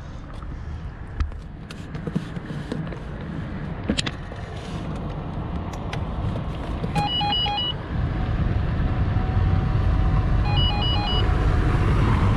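A door intercom panel gives three quick electronic beeps about seven seconds in and three more near the end, over a low road-vehicle rumble that swells about eight seconds in. Sharp knocks and clicks come early on.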